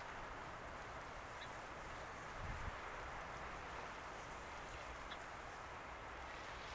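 Steady hiss and wash of choppy harbor water, with a brief low thump about two and a half seconds in.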